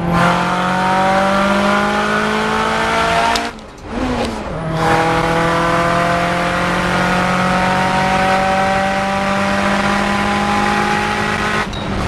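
The turbocharged 4G63-based stroker inline-four of a 2003 Mitsubishi Lancer Evolution VIII, running on boost at full throttle and heard from inside the cabin. The revs climb, dip for about a second at a gear change about three and a half seconds in, then climb steadily again until the throttle is lifted near the end.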